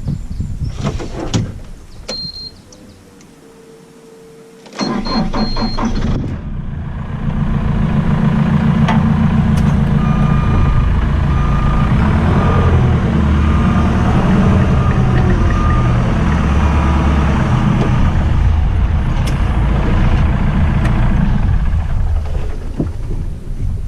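A few metal clanks, then an engine starts about five seconds in and keeps running steadily.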